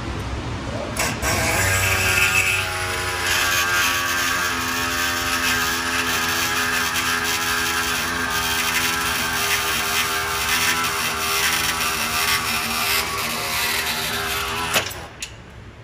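Pneumatic air saw cutting through a high-tensile steel bolt. It starts about a second in and runs steadily, then stops suddenly with a click near the end, as the cut goes through and the bolt head comes off.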